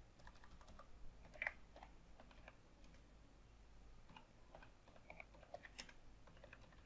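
Faint typing on a computer keyboard: irregular, scattered key clicks.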